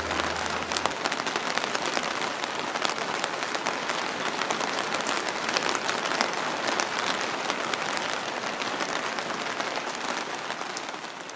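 Steady rain falling, a dense hiss full of small crackling drop impacts, easing off slightly near the end.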